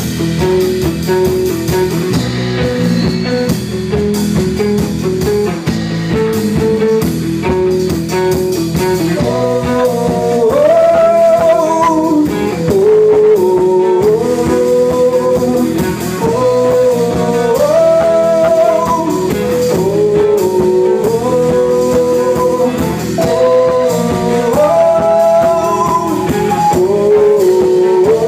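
Bluesy band music with guitar: a steady instrumental backing, and from about nine seconds in a lead melody line with bent notes repeating over it.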